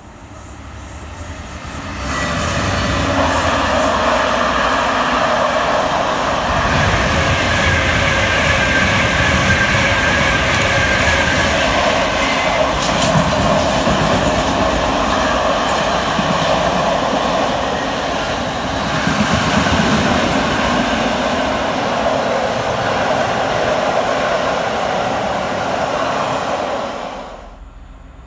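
Freight train of car-carrier wagons loaded with cars passing through on the rails: a steady rumble and rattle of wheels and wagons. It builds over the first two seconds, holds loud, and stops abruptly near the end.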